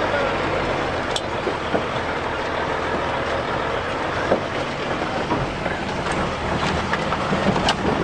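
Steady hum of a running motor vehicle, with a few faint clicks.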